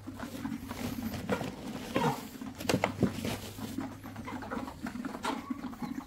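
Chickens calling in short, scattered calls, with several sharper calls about two to three seconds in and again near the end, over a low steady hum.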